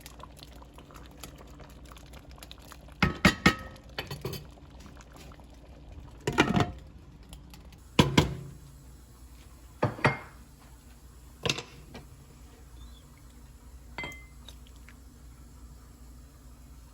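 Metal kitchen utensils knocking and clinking against pots and dishes: about eight separate clinks and knocks, some ringing briefly, the loudest around three and eight seconds in.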